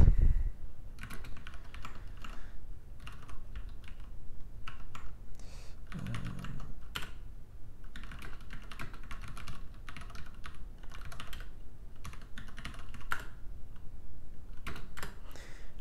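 Typing on a computer keyboard: irregular runs of keystrokes with short pauses between them, and a low thump right at the start.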